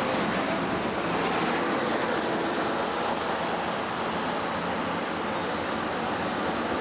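Steady rumble and hiss of a diesel locomotive rolling slowly through a station, mixed with background traffic noise.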